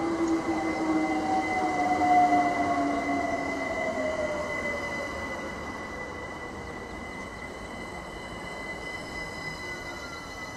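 London Overground Class 378 electric train slowing alongside the platform. Its traction motors give a whine that falls in pitch, loudest about two seconds in, over a steady high-pitched tone from the wheels and rails.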